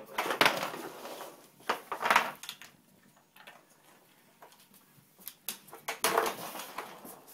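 Hard plastic pieces of a dog's puzzle board, its sliding lids and pegs, clattering and knocking against each other and the wooden floor as the dog noses and paws at it. The noise comes in three clusters, about half a second in, about two seconds in and about six seconds in, with a few scattered clicks between.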